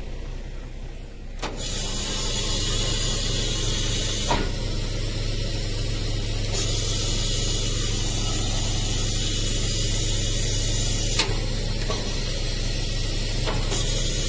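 Hydraulic system of a car carrier trailer lowering its deck: a steady hiss that starts about a second and a half in and holds, over a steady low hum. Two sharp clicks come through, one about four seconds in and one near eleven seconds.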